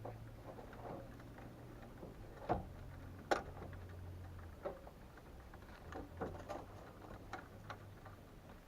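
Scattered small clicks and taps of wires and hand tools being handled at a gas furnace's control board, with two sharper clicks a few seconds in, over a faint low hum.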